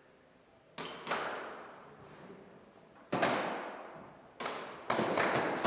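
Airsoft guns firing: a single shot about a second in and another about three seconds in, then a quick string of shots near the end, each shot followed by a long echo.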